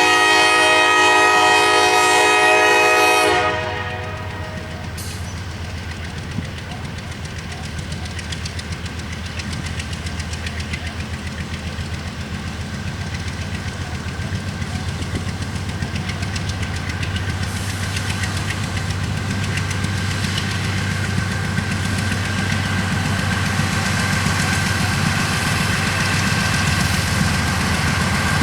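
Freight locomotive air horn sounding one long chord of several notes, cut off about three and a half seconds in. Then the GE diesel locomotives' engines run with a low, evenly pulsing rumble that grows steadily louder.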